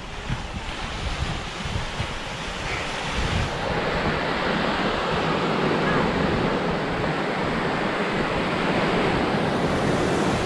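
Sea surf washing in a steady rush, strengthening a few seconds in and then holding, with wind buffeting the microphone.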